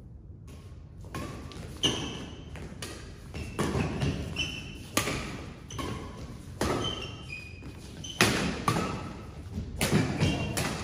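Doubles badminton rally: rackets strike the shuttlecock about a dozen times, starting about two seconds in and coming every half second to a second. Short high squeaks of court shoes on the mat fall between the strikes, and each hit echoes in the hall.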